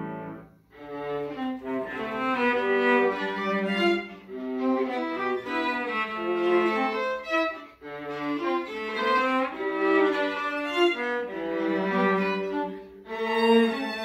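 Live chamber music from a quartet of cello, piano and two higher bowed strings, playing in phrases with short breaks about every four seconds.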